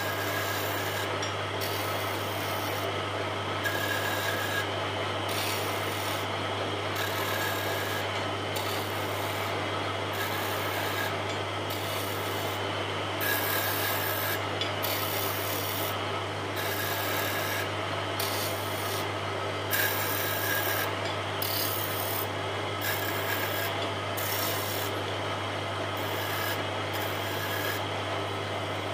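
Wood lathe running with a steady low hum while a turning chisel scrapes and cuts the spinning wooden spindle. The scraping swells and fades in short passes about once a second as the tool works the rings.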